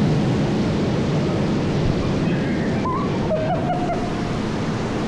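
Steady rush of moving water around the lazy river, with a faint distant voice about three seconds in.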